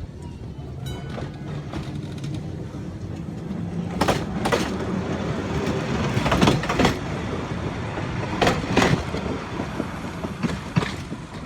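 Electric tram running along the track: a steady rumble with pairs of sharp clacks every couple of seconds as its wheels cross rail joints.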